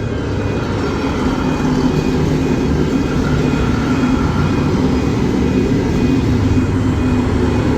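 V/Line VLocity diesel multiple unit passing close by, a loud, steady engine rumble.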